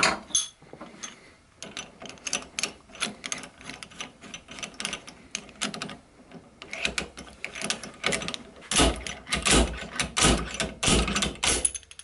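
Slam hammer pulling on a screw driven into the core of a Zeta padlock held in a vise: light metal clicks and scrapes as it is fitted, then from about seven seconds in a quick run of sharp metal knocks as the sliding weight hits its stop. The pulls shear the core's retention screw and pop the cast core out near the end.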